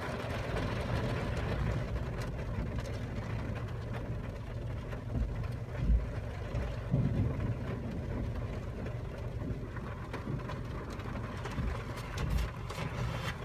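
Steady low hum of a car's interior with the engine running, with a few short, soft low thumps.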